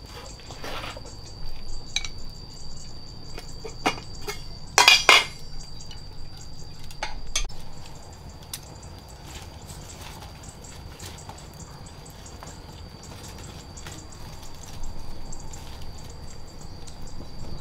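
Scattered knocks and clinks of pots and dishes, with a short loud clatter about five seconds in and water trickling. A steady high-pitched tone runs underneath.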